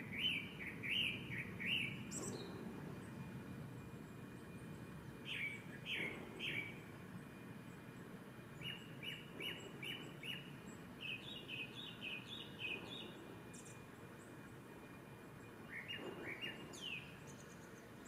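Male Japanese thrush singing: five short phrases of quick repeated whistled notes, a few seconds apart, the last ending in a high falling note.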